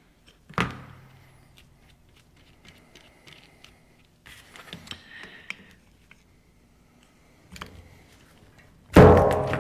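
Metal hand tools working on injection pump fittings: scattered clicks and light taps against metal, then a loud metallic clank near the end that rings on.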